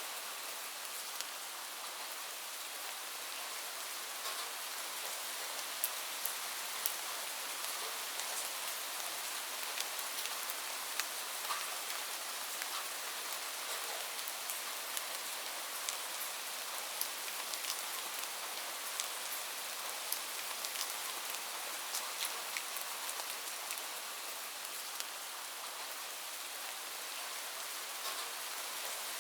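Light rain falling steadily, a soft even hiss with scattered sharp drop ticks throughout.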